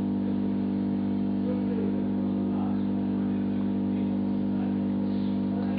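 A steady low hum made of several held tones, with faint voices in the background.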